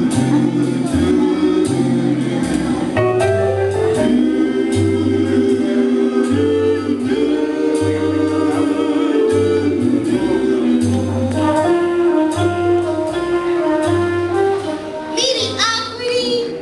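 Music with a bass line pulsing in even notes under held chords, with singing over it. Near the end the music thins out under a voice gliding upward.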